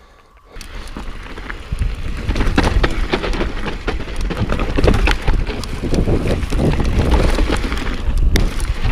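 Mountain bike riding fast down a dirt trail, heard from a chest-mounted camera: wind buffeting the microphone and tyres rolling over dirt and roots, with many sharp clicks and knocks as the bike rattles over bumps. It starts about half a second in and grows louder as the bike picks up speed.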